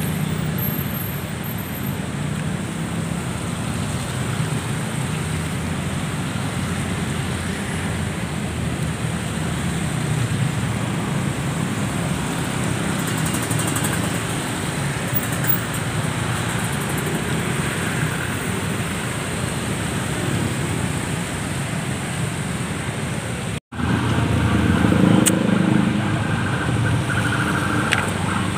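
Steady road traffic noise of cars passing along a busy multi-lane city road. After a brief dropout about three-quarters of the way through, the traffic is somewhat louder, with cars running on a wet road.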